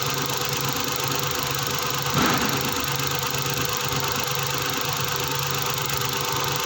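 Suzuki DA64's K6A three-cylinder engine idling evenly, running smoothly with no misfire on cylinder 1. One short, louder sound comes about two seconds in.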